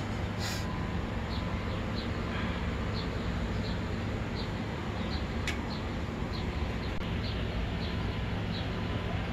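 Steady low background hum, with faint short high chirps repeating two to three times a second and a single sharp click about halfway through.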